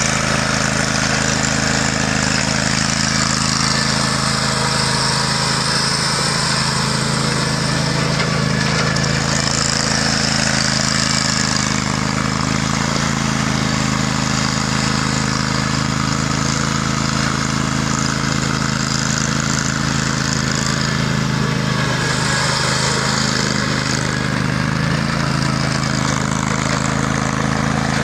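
2013 Bob-Cat Predator Pro 61 zero-turn mower's engine running steadily as the mower drives and turns, with the tyres crunching over gravel.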